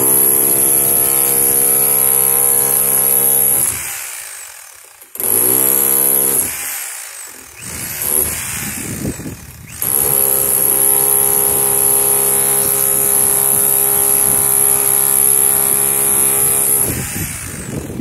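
Small electric jackhammer chipping at the steel side of a limousine around a window opening: a rapid hammering buzz with a high motor whine. It runs for about four seconds, stops, gives a short burst, then runs again for about seven seconds and stops near the end.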